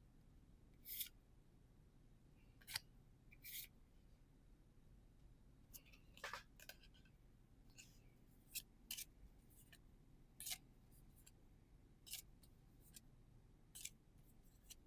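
Trading cards being slid across one another as they are sorted through by hand: faint, short papery swishes, about one every second or two.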